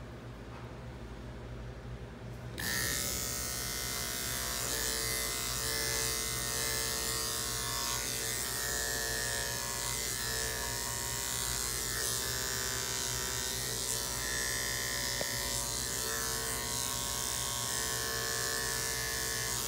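Electric pet clippers switched on about two and a half seconds in, then buzzing steadily as they trim the hair from a dog's paw pads.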